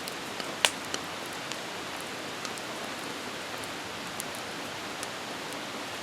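Steady hiss of rain, with a few sharp ticks scattered through it; the loudest tick comes about half a second in.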